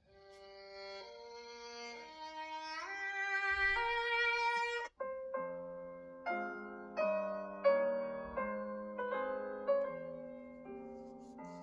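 Google Pixel 7a ringtone playing: a melody of sustained, string-like notes climbing in steps for about five seconds, then, after a brief break, a run of struck keyboard-like notes that each ring and fade.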